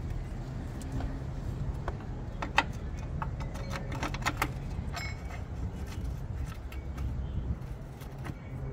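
Light metallic clinks and taps of a steel battery hold-down bracket, bolt and socket being fitted, clustered in the middle, over a steady low hum.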